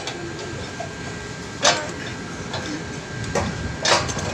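Sharp metal-on-metal clanks from the steel climbing frame and mast of a tower crane as workers fit the mast-section bolts: three loud ones about two seconds apart, with fainter knocks between, over a steady background hum carrying a constant high tone.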